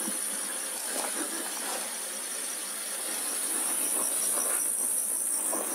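Steady high-pitched chirring of crickets or other insects in the summer evening field, with a few faint rustles.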